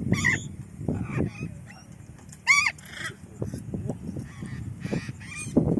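Parrot calling with harsh honking squawks. The loudest is a short call about two and a half seconds in that rises and then falls in pitch, with shorter squawks near the start and the end over low clattering.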